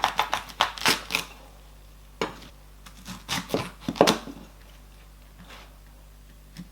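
Knife cutting a cauliflower head open: a run of sharp cuts and knocks in the first second or so, then more around three to four seconds in.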